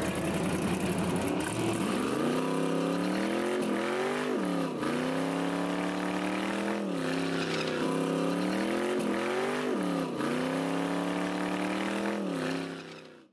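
Race car engine revving hard, its pitch climbing and dropping back several times, then fading out at the end.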